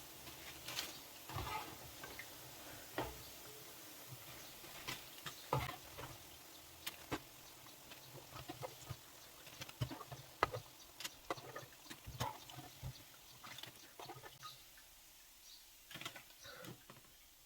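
Faint, scattered clicks and taps of a cooking spoon against the frying pot as fried bean cakes are lifted out of the oil.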